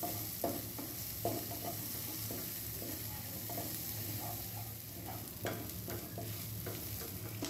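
Shallots, garlic, ginger, lemongrass and bay leaves sizzling in oil in a nonstick frying pan, being sautéed until fragrant, while a wooden spatula stirs and scrapes them. A few light knocks of the spatula against the pan.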